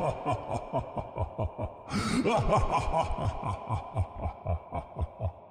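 Creepy, evil-sounding laugh: a long run of rapid 'ha' pulses, about five a second, with a rising cry about two seconds in, fading out at the end.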